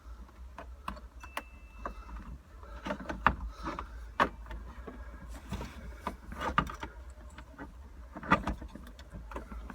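Irregular plastic clicks and knocks of a car's roof console trim and switch panel being handled and pushed into place, over a steady low hum.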